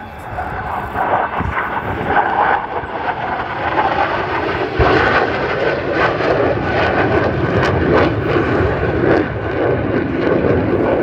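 North American F-100 Super Sabre jet flying past at an air show display, its J57 turbojet noise building over the first five seconds and then staying loud and steady.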